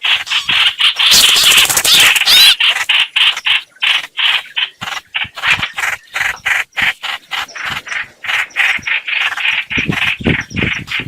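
Lure call of the bird known in Vietnamese as 'hoạch hoạch', played from a recording for bird trapping: a fast run of short repeated call notes, about four to five a second.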